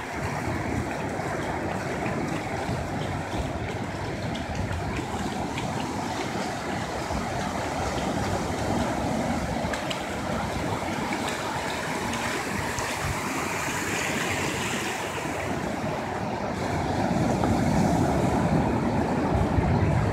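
Ocean surf breaking and washing up the beach in a steady rush, growing louder over the last few seconds.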